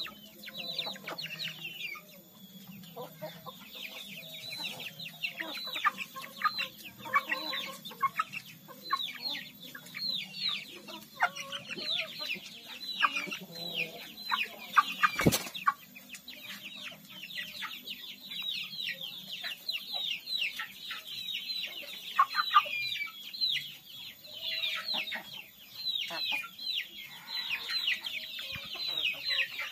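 Young kampung chickens peeping continuously: many short, high calls that fall in pitch, overlapping from several birds. A single sharp knock sounds about halfway through.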